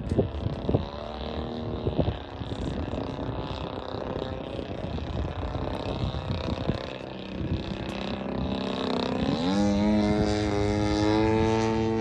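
Radio-controlled aerobatic biplane's motor and propeller buzzing overhead, the pitch wandering with the throttle. About nine seconds in it rises smoothly and then holds a steady high note at high power.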